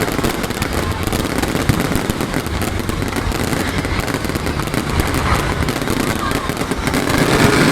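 New Year's Eve fireworks barrage: a dense, unbroken crackling and popping of many small bursts.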